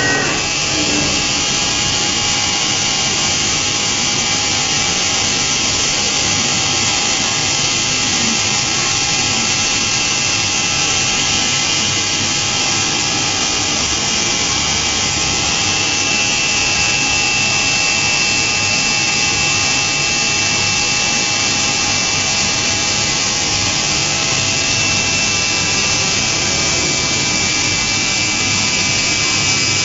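DMU five-axis CNC machining centre milling a metal block with a small end mill: a steady high spindle whine over the continuous hiss of cutting.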